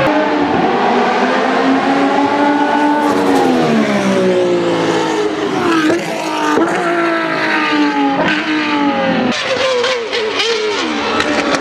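Race car engine sound revving, its pitch sliding down and back up several times, with a run of sharp clicks in the last couple of seconds.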